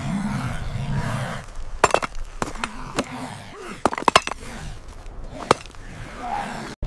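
Sharp knocks and cracks, several in quick succession from about two seconds in, with a last single one near the end, after a low, wavering voice-like sound at the start.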